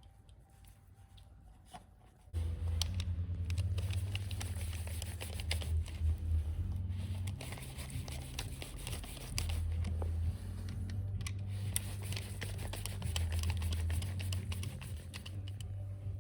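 Background music with a heavy bass line that cuts in suddenly about two seconds in, with many sharp clicks over it. Before it there are only faint clicks and rustling.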